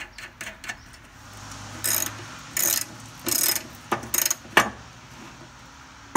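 Ratchet wrench with a 17 mm socket clicking in about six short back-and-forth strokes, running a nut down onto a rubber dash mount. A few light clicks in the first second come from the nut and washer being started by hand.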